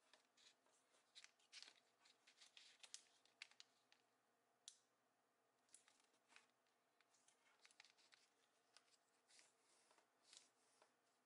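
Faint rustling and crackling of origami paper being folded and creased by hand: a dense run of short crinkles in the first few seconds, then scattered ones.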